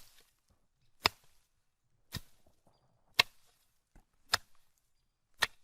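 A machete cutting grass: sharp slashing strokes about once a second, six in all, each followed by a short rustle of cut grass.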